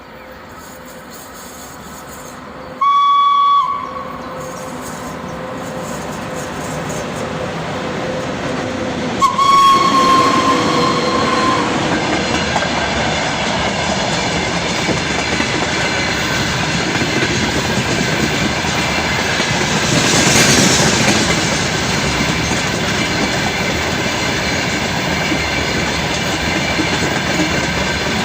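VL80k electric locomotive sounding its whistle twice: a short blast about three seconds in and a longer one of about two and a half seconds around ten seconds in. After that, the locomotive and its freight wagons pass with a growing rumble and wheel clatter that then holds steady.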